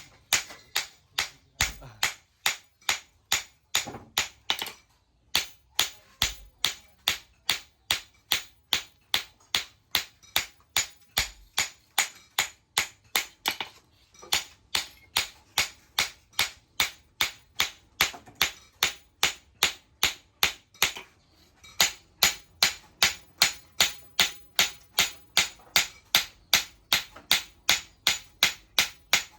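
Blacksmith's hand hammer striking the steel of an old sickle in a steady rhythm of about two to three blows a second, with brief breaks about five and twenty-one seconds in.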